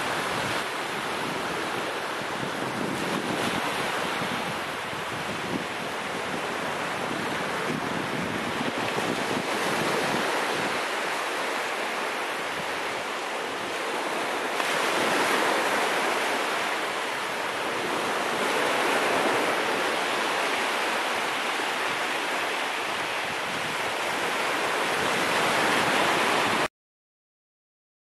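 Small surf washing onto a sandy beach, with some wind on the microphone; the wash swells and eases every few seconds, then cuts off suddenly near the end.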